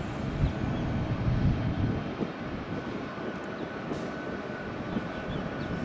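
Jet airliner engine rumble, louder in the first two seconds, with a faint steady high whine from about halfway.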